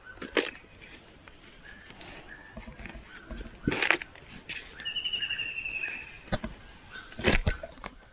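Soil being dug: about three sharp strikes of a digging tool into the earth, roughly every three and a half seconds. Between them runs a high insect buzz that swells and fades, with a short falling call in the middle.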